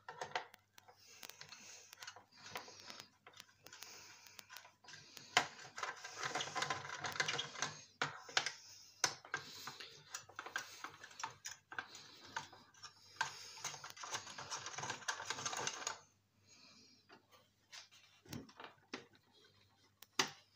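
Plastic and metal parts clicking, rattling and scraping as they are unscrewed and pulled free inside a desktop computer's steel case. A busy stretch of rattling in the middle, then a few scattered clicks.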